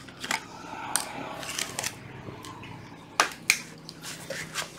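A scatter of sharp clicks and light knocks from hard plastic being handled: a cordless tool's plastic body and a felt-tip marker being picked up, moved and set down. The clicks come singly at first, in a quick cluster just before halfway, and twice more later.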